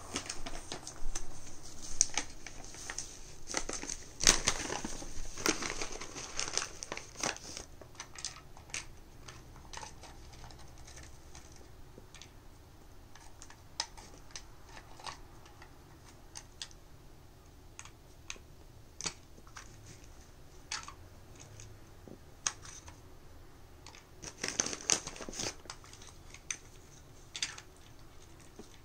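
Plastic puzzle feeder being handled: irregular clicks, taps and scrapes of its plastic covers and base. Dense runs of rapid clicking come in the first seven seconds and again around twenty-five seconds in, with scattered single clicks between.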